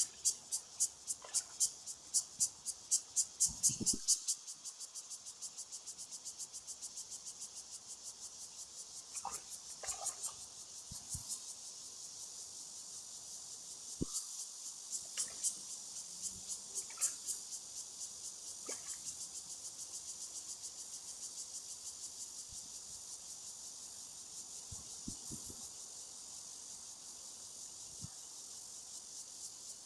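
Insects calling in a high buzzing drone, pulsing rapidly at about four beats a second for the first few seconds, then holding steady.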